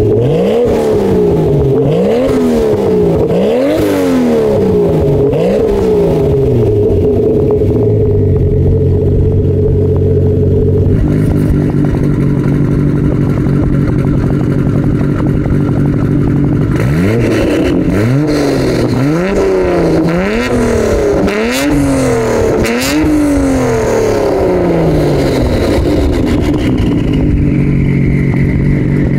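Toyota Supra MKIV's single-turbo 2JZ-GTE straight-six revved in a series of quick blips through a catted HKS exhaust, then running steadily. About eleven seconds in it gives way to a Nissan Skyline R34 GT-R's twin-turbo RB26DETT straight-six idling. From about seventeen seconds the Skyline is revved in rapid blips through a non-catted titanium Tomei exhaust, ending with a long falling rev.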